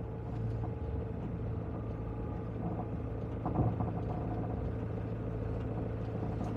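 Campervan engine running steadily at low speed during a turning manoeuvre, with a steady low hum. There is a brief knock about three and a half seconds in.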